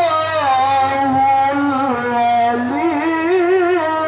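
A male qari's voice through a handheld microphone, reciting Arabic in the melodic Quranic style: long held notes with winding ornaments. The pitch drops right at the start, then climbs into a wavering ornament about three seconds in.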